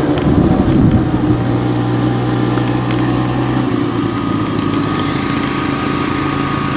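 An engine running steadily with an even low hum, its pitch shifting slightly about a second in and again near four seconds.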